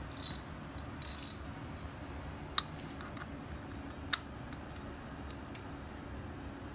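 Hand ratchet clicking in two short runs as it is swung back and forth on an oil filter wrench socket, loosening a Harley-Davidson oil filter. Then come a couple of sharp metallic clicks, the second about four seconds in and the loudest, and a few faint ticks.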